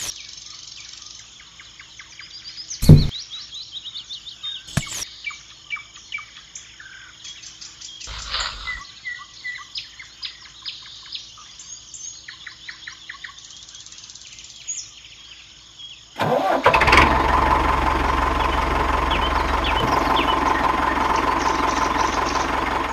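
Birds chirping, with a few sharp knocks of small plastic model parts being handled; the loudest knock comes about 3 s in. About two-thirds of the way through, an engine starts abruptly and runs steadily and loud, as the toy mini truck moves off.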